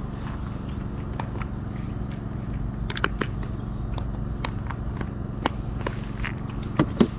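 Scattered light clicks and rattles of plastic bait tubs and wafters being handled, over a steady low hum.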